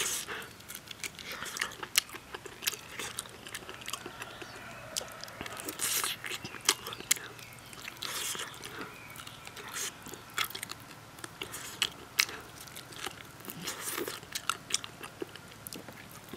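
A person gnawing and chewing braised spicy lamb trotters held in the hands: a run of irregular smacks and clicks of lips and teeth on the soft skin and bone.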